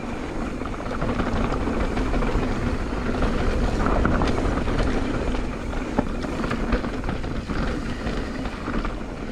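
Mountain bike riding down a dirt trail: wind rushing over the microphone and the tyres rolling, with a few sharp clicks and rattles from the bike.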